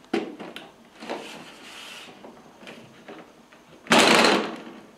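Plastic bezel frame of an LED TV being pried off by hand: a few small clicks and rubbing as the snap clips let go, then a loud plastic scrape and rattle about four seconds in as the frame comes free.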